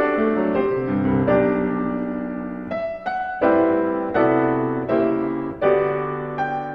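Background music: a piano playing chords, each struck and left to fade before the next.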